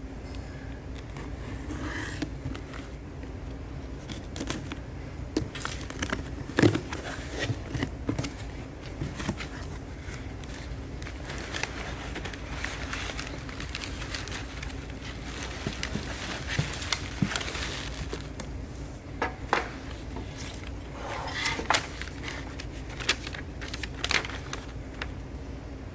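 Hands unpacking a cardboard box: packing tape and flaps pulled open, crumpled packing paper and plastic wrap rustling and crinkling, with scattered sharp knocks as the metal skimmer parts are lifted out and set on a steel bench. A steady low hum runs underneath.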